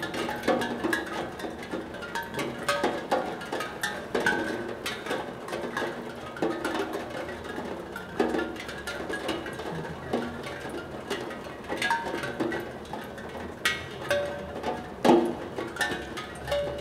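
Raindrops striking a steel tongue drum, sounding short ringing notes of different pitches at random as drops hit different tongues, with one louder hit near the end.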